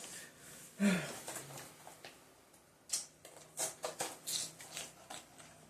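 Plastic snack packaging crinkling and crackling in a run of sharp rustles as the packet of strawberry cookies is handled and opened, after a brief louder sound about a second in.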